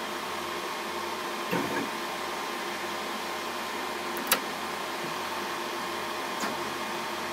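Steady hum of an Epilog laser engraver's fans and exhaust running idle, with a few light clicks and knocks as the laser carriage and its focus gauge are handled. A sharp click about four seconds in is the loudest.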